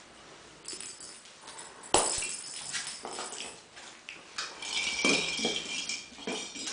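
Smooth collie puppies playing with plastic toy balls on plastic mats over a wooden floor: scattered knocks, scuffles and rattling, with one sharp knock about two seconds in and a high squeak in the second half.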